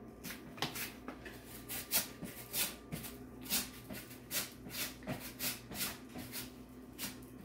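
Raw potatoes being grated on a cheese grater: repeated rasping strokes, about two or three a second, uneven in strength.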